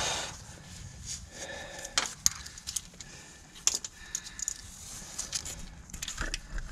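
Irregular metal clinks, taps and a short scrape of tools and small parts as the hydraulic timing-chain tensioner is unbolted from the engine.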